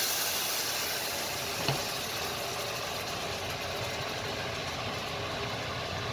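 Steady hiss of steam and simmering from a pot of cooked black beans while their cooking liquid is ladled into the rice, with one light clink of the ladle about one and a half seconds in.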